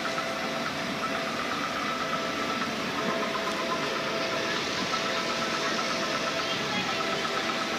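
Steady street traffic noise with a faint engine hum.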